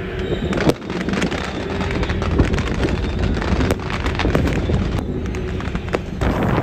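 Strings of firecrackers going off in rapid, irregular cracks over a steady low rumble.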